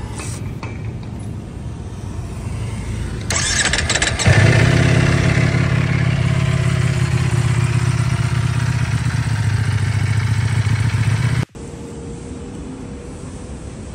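Ducati Panigale V4S's V4 engine cranked on the starter for about a second, catching a little over four seconds in and then idling steadily. The engine sound cuts off suddenly near the end, leaving a quieter steady background noise.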